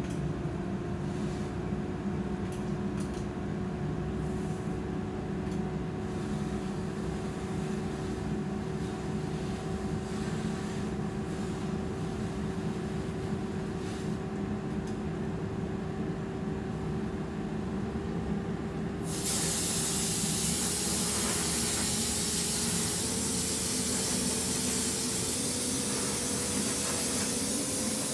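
Plating-shop machinery running, the fume extraction blower droning steadily with a tone that slowly rises in pitch. About two-thirds of the way in, a loud steady hiss starts suddenly and carries on over the drone.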